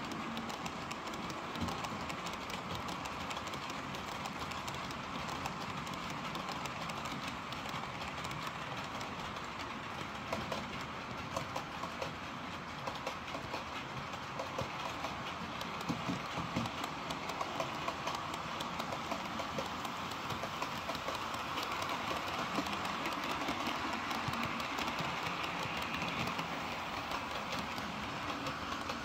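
OO gauge model trains running along the layout's track: a steady whirr of wheels and motors with frequent light clicks over the rail joints, growing a little louder in the second half.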